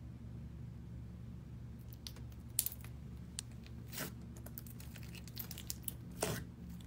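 Fingers poking and pressing slime in a plastic cup, making irregular crackles and pops that start about two seconds in. A steady low hum runs underneath.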